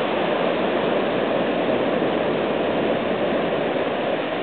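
Steady rushing of water, an even noise that holds without change.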